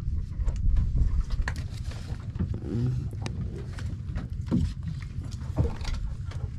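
Steady low rumble with scattered knocks and slaps of large fish being handled against the wooden hold of a fishing boat.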